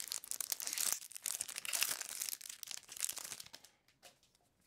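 Foil Magic: The Gathering booster pack wrapper crinkling and tearing as it is opened by hand, stopping about three and a half seconds in.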